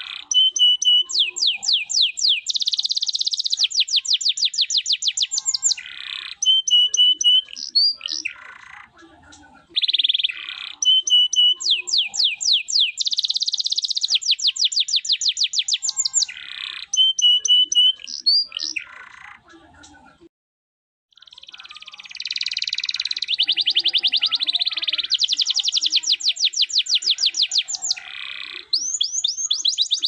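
Domestic canary singing a long, fast song of rapid rolling trills and repeated chirping phrases, separated by short pauses. The song breaks off for about a second around two-thirds of the way through, then carries on.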